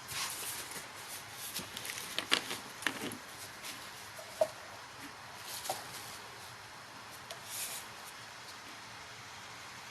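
Scattered small clicks and rustles of handling over a steady hiss, the sharpest click about halfway through; the handling stops after about eight seconds, leaving only the hiss.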